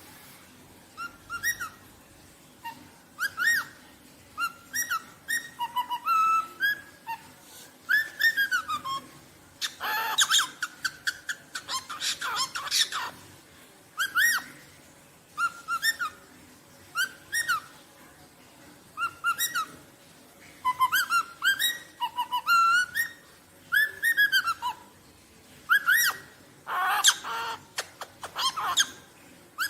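Rosellas whistling in short, clear notes that rise and fall, repeated in phrases every second or two, broken a few times by harsher, noisier calls.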